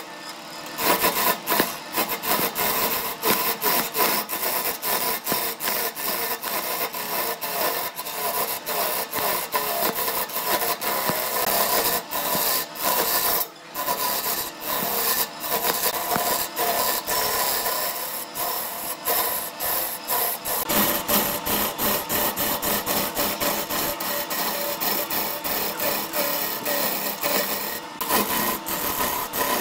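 Wood lathe turning a glued-up wooden cylinder while a hand-held chisel cuts into it: a continuous scraping rasp of the tool on the spinning wood, broken by many short breaks as the cut lightens or the tool lifts.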